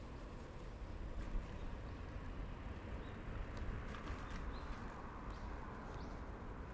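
Riding a bicycle: steady rolling noise with a low rumble of tyres and wind, and a few light clicks from about four seconds in.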